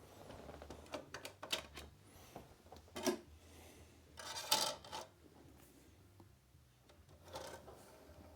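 Plastic clicks, knocks and short scrapes of a CD and its jewel case being handled and loaded into a CD player.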